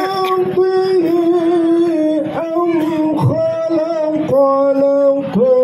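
A man reciting verses of the Qur'an in the melodic tilawah style. He holds long notes, with short ornamented turns and breaks for breath between the phrases.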